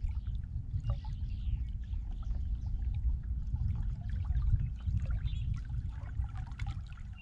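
Small waves lapping and splashing against a boat's hull over a low, fluctuating rumble. A faint steady hum stops about four seconds in.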